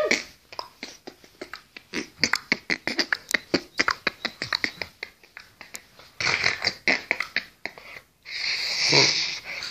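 A boy beatboxing into his cupped fist: a quick run of mouth clicks and pops, then a few longer breathy hissing sounds near the end.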